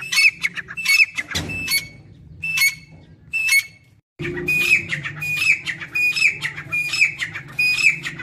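Grey francolin calling: loud, shrill, high-pitched notes repeated over and over. The calls break off abruptly about four seconds in, then go on at a steady pace of a little over one a second.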